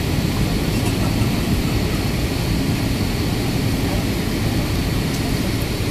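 Steady in-flight cabin noise of an Airbus A320neo with CFM LEAP-1A engines: an even rush of engine and airflow noise, heaviest in the low end.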